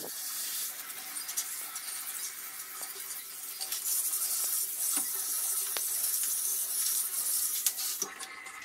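Handheld shower head spraying water over plastic air-purifier fan parts: a steady hiss of spray splashing on the blades, grille and tile floor, with small knocks as the parts are handled. The spray eases near the end.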